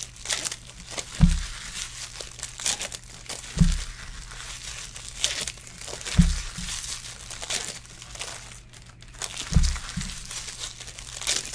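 Foil trading-card pack wrappers crinkling and tearing as packs are opened and cards handled, with a dull knock on the table every few seconds, two close together near the end.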